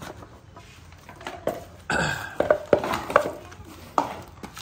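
Clattering and knocking of hard objects being handled and set down: a run of irregular knocks beginning about a second in, busiest and loudest in the middle.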